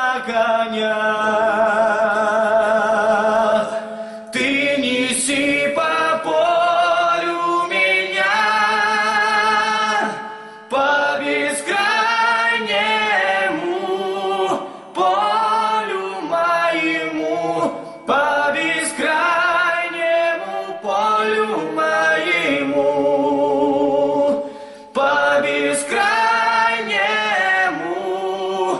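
Two young men singing a cappella in harmony, with vibrato on the held notes and a steady low note under the melody. The phrases break off briefly every few seconds, about five times.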